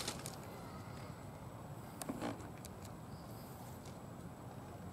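Quiet outdoor background with a low steady hum. A short faint sound comes about two seconds in, and faint high chirps a little later.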